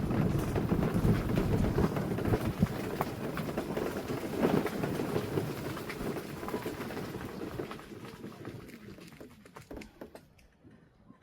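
Continuous crackling rumble of travel over a gravel forest road, with many small crunches, fading away over the last three seconds or so.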